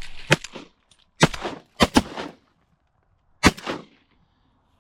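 Shotguns firing at ducks: a volley of sharp blasts, four in the first two seconds with two close together, then one more about three and a half seconds in.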